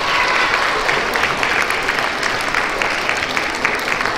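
An audience of young schoolchildren applauding, many hands clapping at once.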